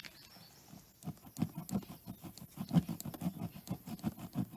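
Reaming tool being worked back and forth in a puncture hole in a tubeless motorcycle tyre: a fast, irregular run of rubbery scrapes and knocks, about four a second, starting about a second in, as the hole is enlarged to take a plug.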